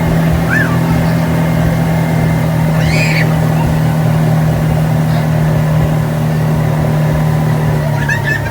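Speedboat engine running at a steady high speed, with a few short voice calls over it; right at the end the engine note drops as it eases off.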